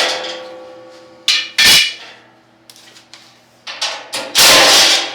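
Metal clanks and knocks from tools and loose bolts and brackets on a metal motorcycle shipping crate being unbolted. There are two sharp clanks about a second and a half in, a few lighter knocks, then a longer, louder clatter near the end, with a faint metallic ring in between.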